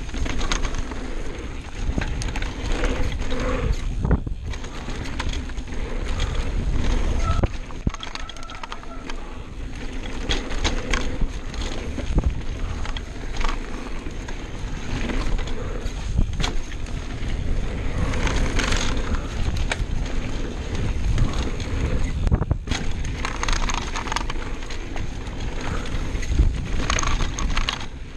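Mountain bike ridden fast down a dirt trail: tyres rolling and scrubbing over dirt and rocks, with many sharp knocks and rattles from the bike over bumps and landings.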